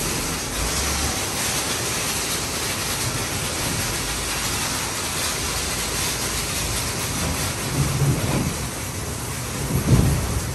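Istobal M9+ gantry car wash spraying sealant onto a car: a steady hiss of spray pattering like rain on the bodywork. Two low thumps come near the end.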